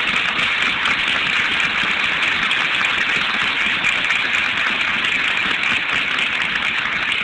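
Large audience applauding steadily, a dense clatter of many hands clapping after a line of a speech.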